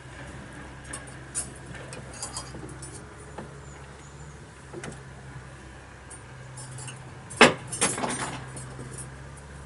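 Clinks and knocks as smoked carp are lifted out of a wooden smokehouse, over a steady low hum. The clicks are scattered, with one loud knock about seven and a half seconds in, followed at once by a quick run of rattling clicks.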